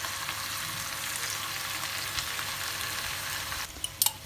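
Diced vegetables and cubed meat sizzling in a frying pan as a wooden spoon stirs them. The steady sizzle cuts off sharply near the end.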